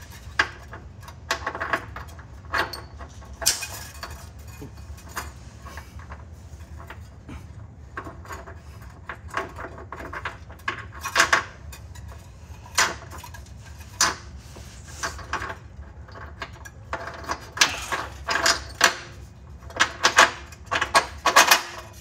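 Hitch carriage bolt and spacer plate clinking and rattling against the steel frame rail as they are fished through the frame's access hole: irregular metallic clicks and clanks, busiest near the end.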